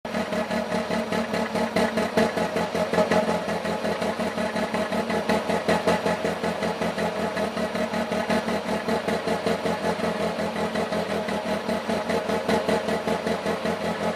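Alfa Romeo 156 engine idling roughly: a fast, pulsing beat whose loudness wavers unevenly, with occasional stronger surges.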